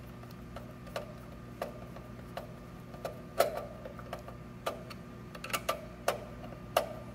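Screwdriver working a cable-clamp screw inside a steel electrical box: irregular metallic clicks and taps, one or two a second, some ringing briefly in the box. A steady low hum runs underneath.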